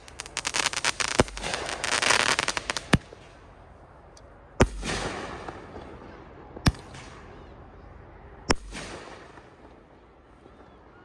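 Firework cake firing: a rapid run of crackling pops for the first few seconds, then four single sharp shots about two seconds apart, each trailing off in a fading echo.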